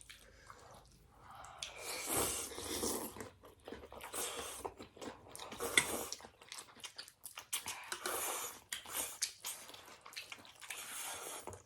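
Close-up chewing and crunching of a mouthful of thukpa noodle soup, a run of irregular wet bites and crisp crunches.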